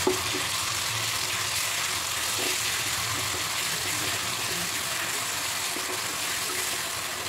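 Onion chutney paste sizzling in hot oil in a pan as it is stirred with a spatula: a steady hiss, with a light knock of the spatula at the start.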